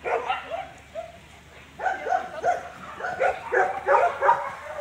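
German Shepherd barking in short, sharp calls: a few in the first second, then a rapid run of about three or four a second from about two seconds in.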